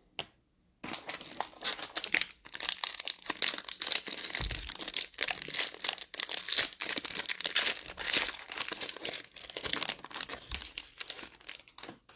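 A Fleer Ultra Midnight Sons trading card pack being torn open, its wrapper crinkling and crackling in dense, irregular bursts that start about a second in and stop just before the end, with a couple of soft bumps along the way.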